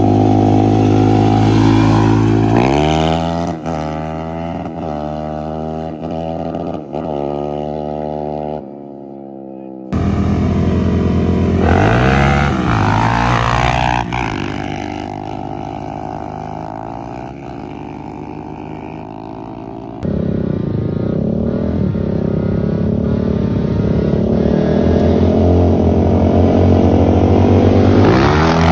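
Sport quad engines at full throttle in drag runs. Two quads launch and accelerate, their pitch climbing through each gear and dropping at every shift. The sound is loudest near the end as they pass close by.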